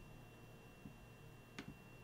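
Near silence: room tone with a faint steady high whine and a single faint, sharp computer click about one and a half seconds in, from clicking while editing the design in the software.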